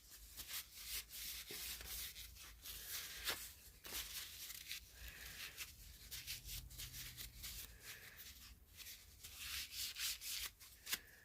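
Faint rubbing on a vintage flashlight's reflector as it is wiped and polished clean, in quick irregular strokes.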